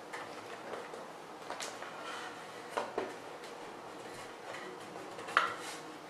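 Scattered small clicks and taps of hands fitting a knock sensor onto the inside of a wooden box lid, with a sharper click about five seconds in.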